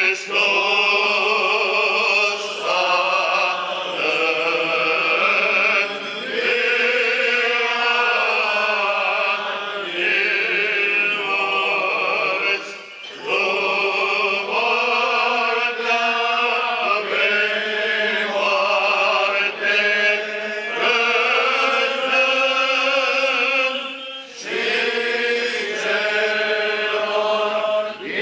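Orthodox liturgical chant sung in long, sustained phrases, with short breaks between phrases about 6, 13 and 24 seconds in.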